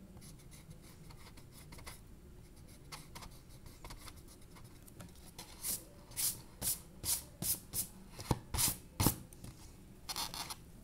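Coloured pencil shading on drawing paper: faint scratching at first, then a run of about nine quick strokes over some three seconds, and one more brief scratch near the end.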